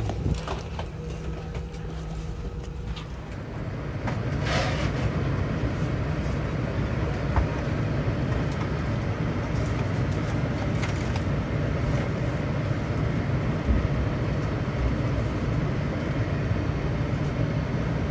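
Steady low hum and rush of an Airbus A319's cabin on the ground, growing a little louder about four seconds in, with a brief rustle around the same point.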